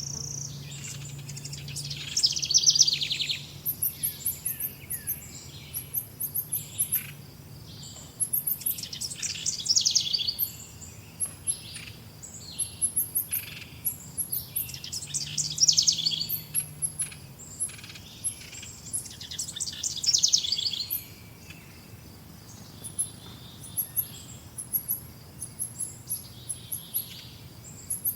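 Birds singing. A loud, fast trilled song phrase sweeps down in pitch and repeats about every six seconds, with many short, high, faint chirps from other birds in between.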